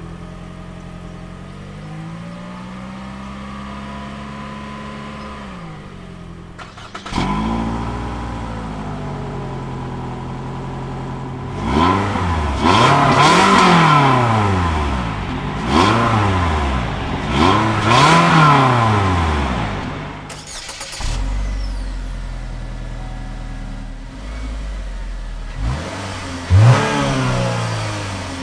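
Car exhausts recorded at the tailpipe, one after another. First a Toyota Prius V's engine runs with its pitch slowly rising and falling. About seven seconds in, a Toyota RAV4's four-cylinder starts and is then revved several times. Near the end, a GMC Terrain runs and is revved briefly.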